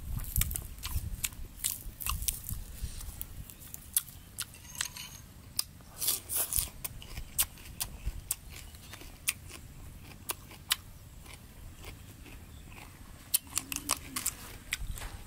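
Fresh cilantro and green onion stalks snapped and torn by hand: a string of irregular sharp clicks and crackles, busiest around the middle and near the end, with low dull thumps underneath.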